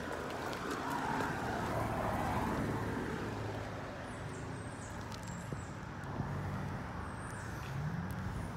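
Road traffic: a motor vehicle going by, loudest in the first few seconds, then a steady background rush.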